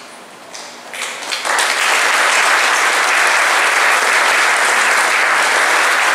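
Audience applauding: a few scattered claps at first, then full applause sets in about a second and a half in and holds steady.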